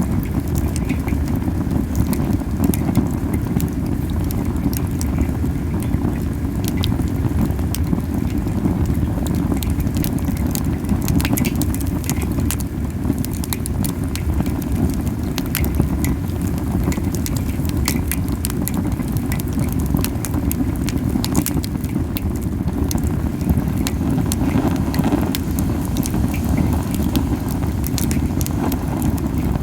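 Camellia-wood campfire burning hot: a steady, low puffing of the flames, strong because the fire is burning too fiercely, with scattered sharp crackles and pops from the wood.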